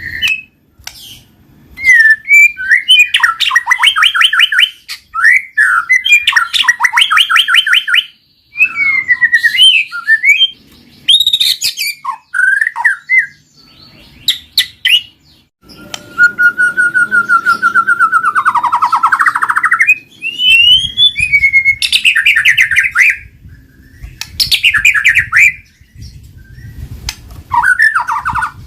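White-rumped shama (murai batu) singing loudly and almost without pause, in varied phrases: clear whistled slurs and glides alternating with fast rattling trills.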